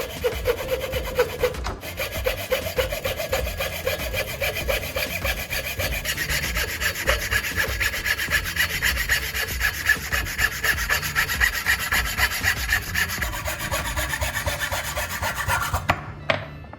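A saw cutting through a wooden stick with fast, regular back-and-forth strokes. The pitch of the cut rises as the saw works deeper, and the sawing stops shortly before the end.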